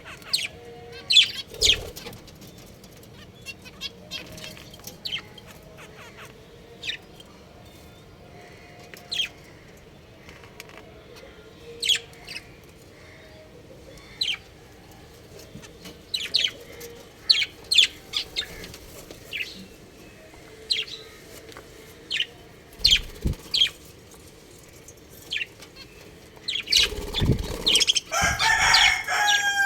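Budgerigars chirping: scattered short, sharp chirps, turning into dense, continuous chattering near the end.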